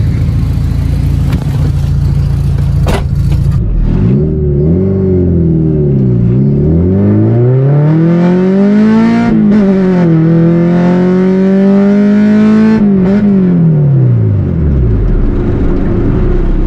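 Honda Civic EG's SOHC VTEC four-cylinder engine, heard from inside the cabin, idling steadily at first with a sharp click about three seconds in. It then revs up and falls back several times as the car pulls away, with a steady climb in pitch before easing off near the end.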